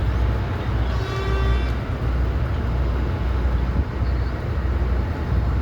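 Road traffic noise: a steady low rumble of vehicles, with a brief pitched tone about a second in.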